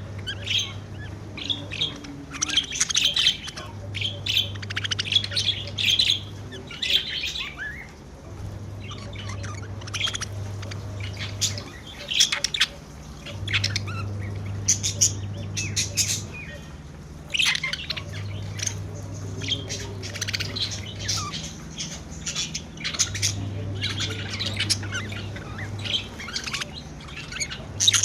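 Pet budgerigars chirping and squawking, many short, sharp, overlapping chirps throughout.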